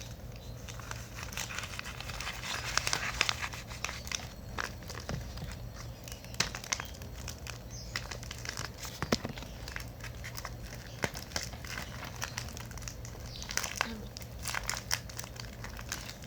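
Crinkly packaging being handled, crinkling and crackling in irregular bursts of small clicks.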